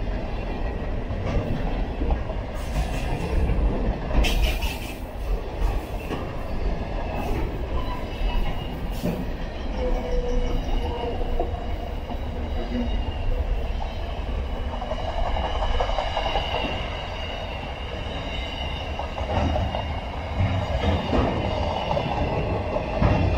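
Container freight train's wagons rolling past, a steady low rumble of wheels on rail with irregular clicks and clanks, mostly between about 3 and 9 seconds in. Thin high wheel squeal comes through at times in the second half.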